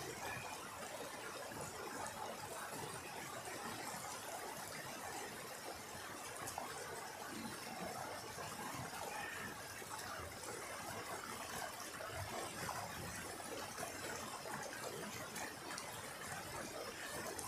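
A small rocky stream running and splashing over stones, a steady even wash of water noise.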